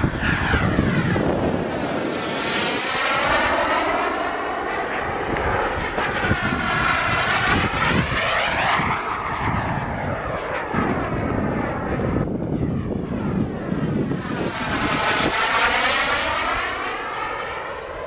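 Radio-controlled model airplane's engine running at speed through three fly-bys, the sound swelling and sweeping in pitch as it passes and fading between passes.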